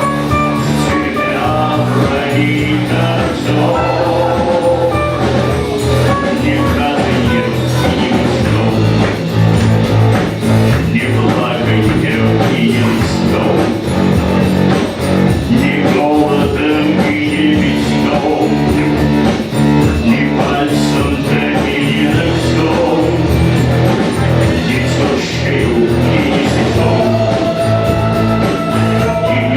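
Live rock band playing, with guitar and singing; the low bass fills out about a third of the way in.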